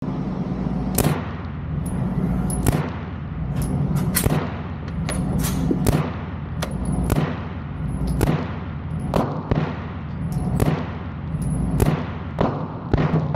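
Unsuppressed 9mm Uzi SBR with a 10.2-inch barrel firing 115-grain FMJ in a string of single shots, roughly one or two a second. Each shot is a sharp crack that echoes in an indoor range, over a steady low hum.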